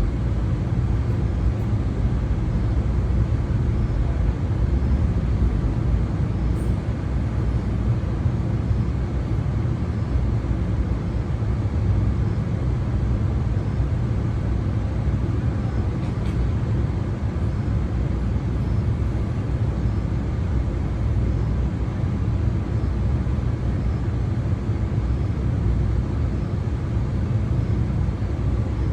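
Steady low vehicle rumble, even in level throughout, with no horn.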